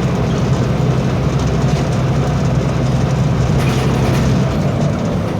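Diesel engine of a VW 17.230 EOD articulated bus running steadily under load, with a strong low drone that eases off about four and a half seconds in as the throttle is lifted.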